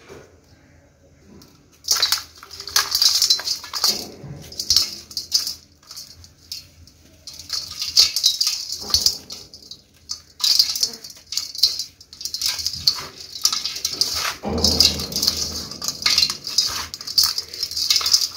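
Dry dirt crumbled by hand, clods breaking and grains trickling and pattering into a perforated metal bowl, in bouts that start about two seconds in. About fourteen seconds in there is a duller, heavier thump.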